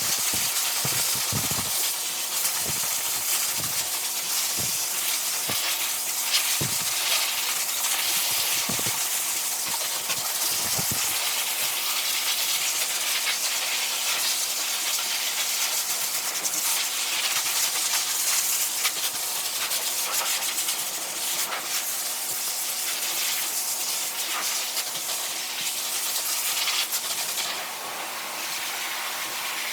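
High-velocity pet dryer blowing a steady stream of air with a motor hum underneath, drying a poodle puppy's coat, with a few soft knocks in the first half.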